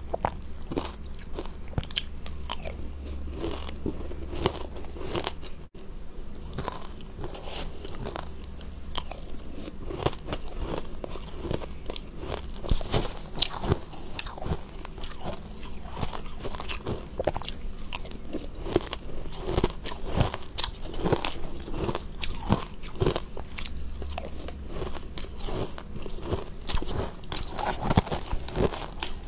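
Close-up crunching and chewing of crushed ice, a dense run of crisp, irregular crackles as mouthfuls are bitten and ground.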